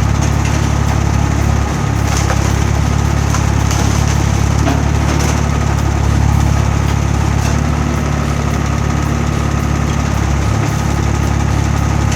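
Firewood processor running: a steady low engine drone with a few faint clicks and cracks of wood on top.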